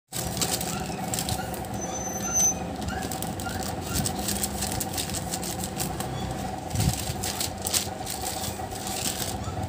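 Plastic courier pouch crinkling and rustling in irregular crackles as it is turned over in the hands, over a steady background hum.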